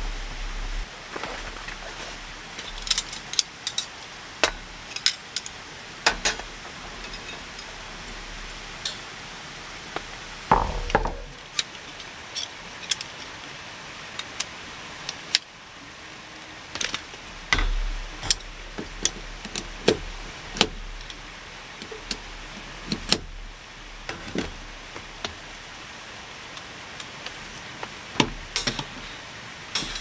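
Irregular metallic clicks and clinks of camping gear being handled: the metal frame of a folding camp table and segmented metal tent poles being fitted together, with a few louder knocks. Under them runs a steady hiss of rain.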